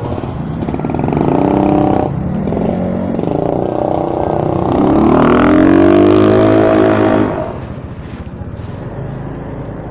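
Motorcycle engine revving up: a short loud burst that cuts off sharply, then about halfway through the pitch climbs and holds before easing off, with street traffic noise underneath.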